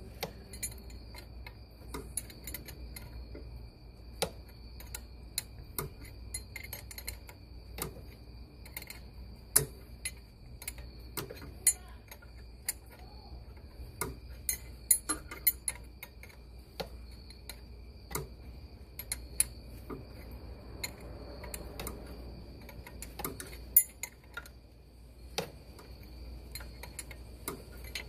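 Irregular small metallic clicks and clinks of a wrench turning a brake line fitting into an ABS hydraulic unit, a little at a time, over a faint steady high-pitched whine.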